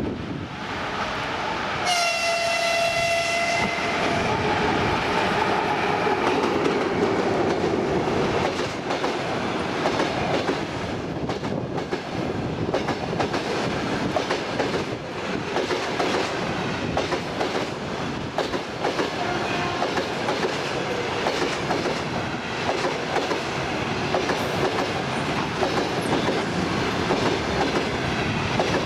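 Electric locomotive horn sounding one note for about two seconds, followed by a passenger train passing close by with its wheels clattering steadily over the rail joints.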